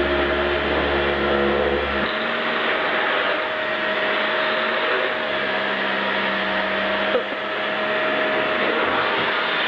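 Aluminium-bodied vacuum cleaner running steadily, a loud even rush of air with a steady whine. A deeper hum drops away about two seconds in, and there is one short knock about seven seconds in.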